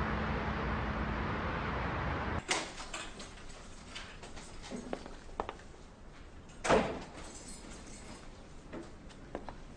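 A steady rushing noise that stops about two and a half seconds in, then a door being opened and shut. There are a few small clicks and knocks of the latch and handle, and a louder thump as the door closes about seven seconds in.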